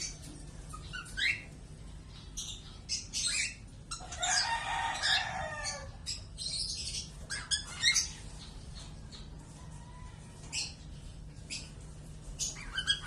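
Lovebirds chirping and squawking in short, sharp calls, scattered throughout. About four seconds in, a rooster crows once for about two seconds, the loudest sound, falling in pitch at the end.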